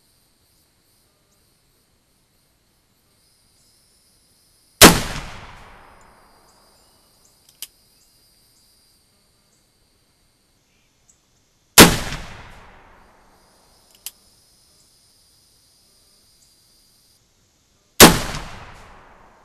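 Three shots from a brass-framed CVA replica "Confederate" cap-and-ball percussion revolver firing black-powder loads, about six to seven seconds apart, each a sharp crack that echoes away over a second or so. A faint single click comes between the shots.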